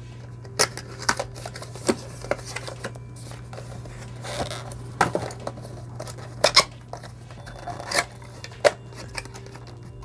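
Cardboard product packaging handled and opened: scattered taps, scrapes and clicks of cardboard, with a short rustle of sliding near the middle, over a steady low hum.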